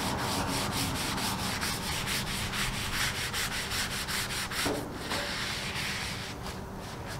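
A cloth pad scrubbing a Blackstone griddle's steel cooktop in quick back-and-forth strokes, several a second, as the surface is cleaned. The strokes grow sparser and quieter near the end.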